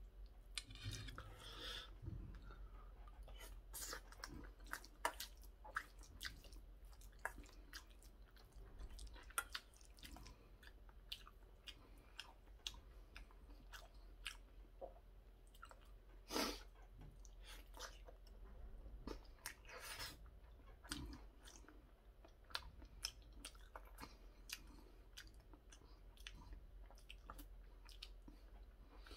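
Chewing curry rice close to the microphone, with many short clicks of a metal spoon against a stainless steel bowl as he scoops; one louder click about sixteen seconds in.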